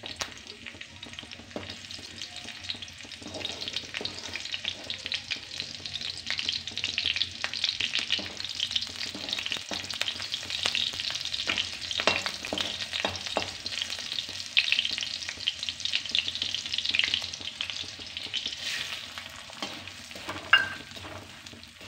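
Chopped green chillies sizzling and crackling in hot oil in a metal kadhai, stirred and scraped with a metal spatula. By the end, flattened rice (chura) is frying and being stirred in the oil too.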